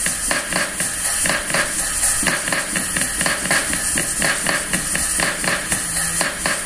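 Rhythmic hand percussion: hard, sharp knocks struck at a steady, even beat of about three a second.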